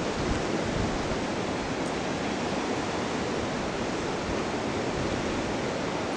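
High wind blowing through oak trees, a steady rushing of tossing leaves and branches.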